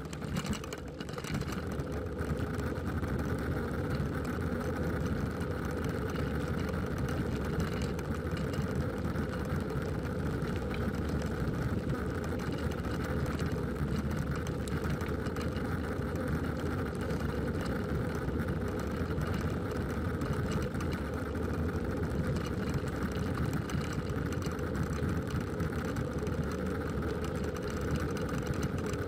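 Bicycle riding along a patched asphalt road, giving a steady, even rolling noise.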